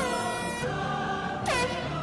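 Two air horn blasts, a half-second blast at the start and a shorter one about a second and a half in, each dipping in pitch as it starts and then holding a steady blaring tone, over background music.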